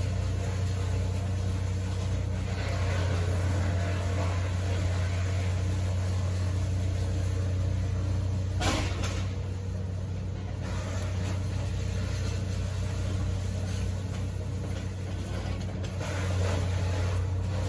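Steady low engine hum, with one short knock about nine seconds in.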